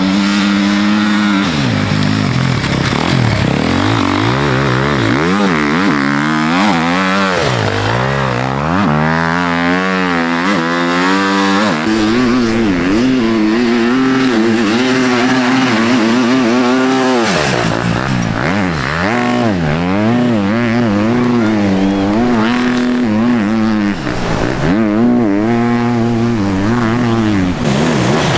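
Enduro dirt bike engines racing through deep sand, revving hard with the pitch rising and falling again and again as the riders open and close the throttle and shift gears.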